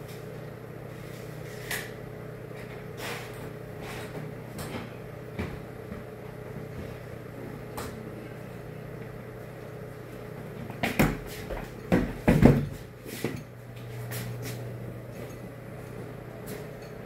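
Knocks and bumps of large toilet-partition panels being handled, with a cluster of louder bangs about two-thirds of the way through, over a steady low hum.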